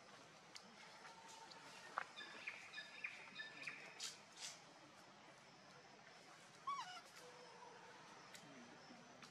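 Faint outdoor hiss with scattered short, high animal chirps and clicks, and one call that falls steeply in pitch about seven seconds in.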